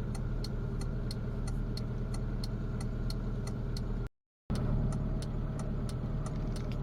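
Car engine idling steadily, heard from inside the cabin, with the indicator relay ticking about three times a second. The sound drops out completely for a moment about four seconds in.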